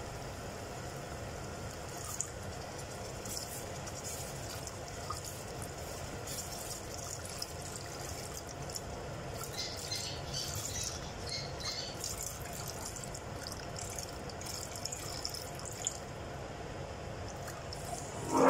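A silicone spatula stirring a butter-and-flour roux in a stainless steel pot, then dissolved powdered milk poured in from a bowl, with a stretch of faint crackly liquid sound about halfway through as the milk goes in.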